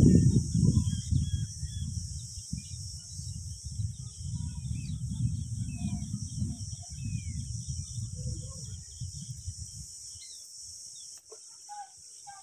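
Outdoor ambience: a steady high insect trill and many short, high bird chirps, under a low rumbling on the microphone that is loudest at the start and dies away about ten seconds in. A single sharp click near the end.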